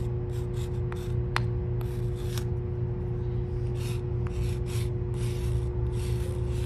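A thick stick of chalk scraping across a concrete sidewalk while writing letters, in a run of short, uneven strokes. A steady low hum runs underneath.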